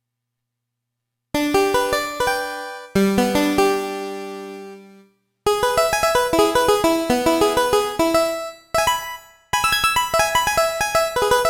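Roland D-05 synthesizer playing a keyboard patch. After about a second of silence, a few chords sound and fade away, then a fast run of notes begins, with one brief pause near the end.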